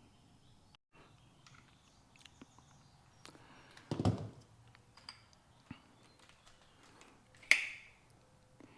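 Scattered light clicks and knocks of metal parts being handled while an engine mounting bracket is fitted to a lawn edger, with a heavier thump about four seconds in and a sharp knock with a short ring about a second before the end.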